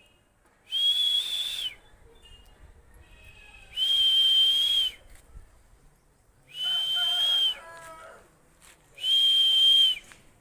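A shrill whistle sounding four times, each blast about a second long at one steady high pitch with a breathy hiss, repeated about every two and a half seconds.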